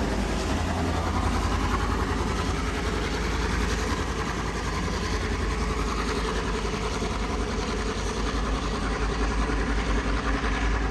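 A heritage diesel locomotive's engine running steadily with a low hum as it pulls a train of vintage carriages away.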